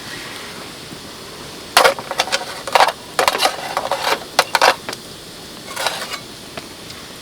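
A quick run of crinkling, clicking handling noises from about two seconds in until nearly five seconds, with a shorter burst near six seconds, over a steady background hiss.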